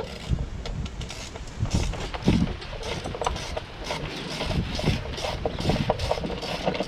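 Irregular metallic clicks and knocks of hand tools working on a Mitsubishi 4G93 MIVEC engine, with a few heavier thumps.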